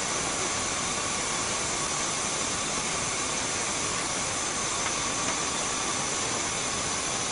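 Steady hiss of steam from a 1/5-scale live-steam model locomotive being raised to steam.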